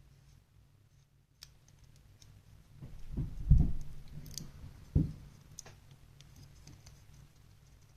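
Hands working on laptop parts: scattered small plastic clicks, a cluster of dull knocks about three to four seconds in and one sharper knock about five seconds in.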